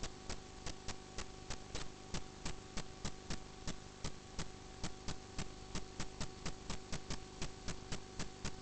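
Steady electrical hum with an even ticking, about three and a half ticks a second, from a sewer inspection camera system during a drain-pipe run.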